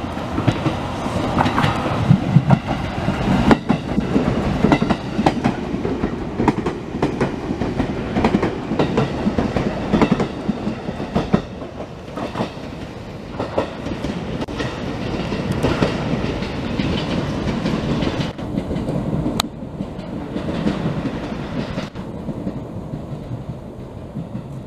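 JR Kyushu 787-series electric limited express passing through the station at speed without stopping: a loud rush with wheels clattering over the rail joints. The sound fades over the last several seconds as the train moves away.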